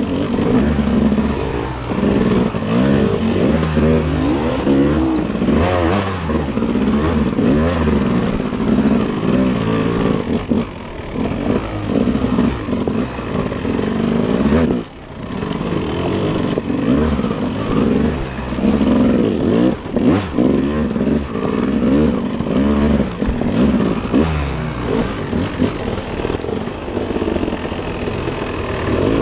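Off-road motorcycle engine running under the rider, revving up and down in short bursts as the bike climbs over rocks. About halfway through the throttle shuts off briefly and the engine note drops away for a moment.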